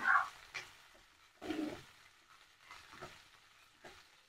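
Metal spatula scraping and tossing sliced vegetables in a coated frying pan, a stroke about once a second, the loudest at the very start, over a faint sizzle of frying.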